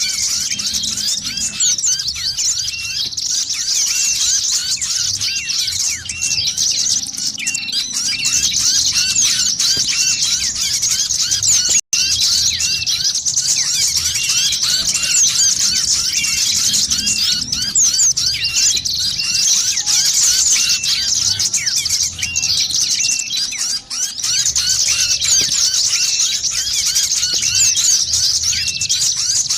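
Dense, continuous high-pitched chirping of many small songbirds, played as a lure call for trapping small birds. The sound breaks off for an instant about twelve seconds in.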